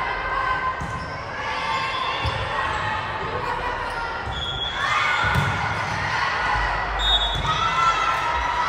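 Indoor volleyball play: the ball thudding as it is hit, with players and spectators calling out, all echoing in a large gym.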